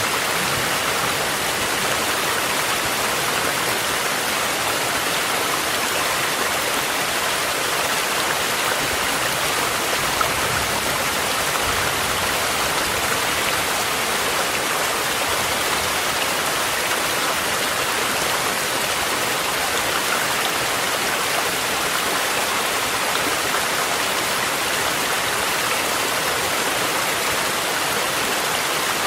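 Mountain stream rushing steadily, layered with steady rain.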